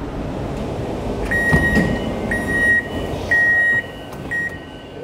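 Hyundai Rotem MRT train door chime: four high beeps about a second apart, the last one shorter, over the steady rumble of the train.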